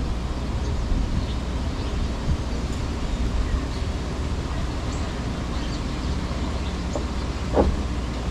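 Windy outdoor town ambience: a steady low rumble of wind and distant traffic, with faint, scattered small-bird chirps and a brief louder sound near the end.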